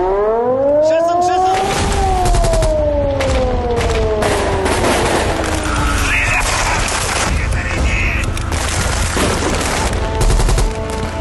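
Rapid automatic gunfire, submachine guns and a sidecar-mounted machine gun firing burst after burst, under music. A long drawn-out tone slides up and then down over the first half.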